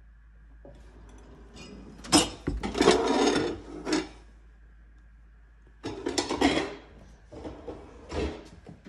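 Kitchen drawers sliding open and shut on their runners: a long rough slide about two seconds in, a shorter one about six seconds in, and lighter knocks near the end.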